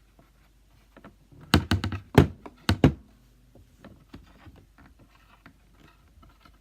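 Handling noise from plastic toy parts: a quick cluster of five or six sharp knocks and thunks between about one and a half and three seconds in, then faint rustling and light taps.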